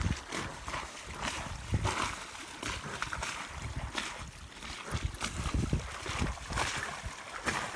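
Water sloshing and splashing against a small sailing yacht's hull in an irregular wash, with gusts of wind buffeting the microphone.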